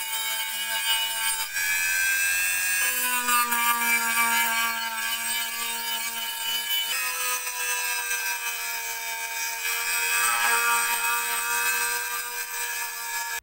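Rotary tool with a small abrasive sanding drum running against the metal rim of a kerosene camping stove's body, a steady whine whose pitch slowly sinks and jumps back up twice, about three and seven seconds in.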